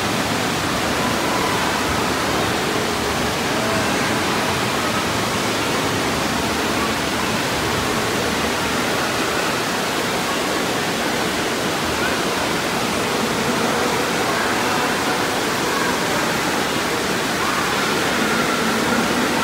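Steady rush of water streaming around a bowl waterslide and pouring down its central drain.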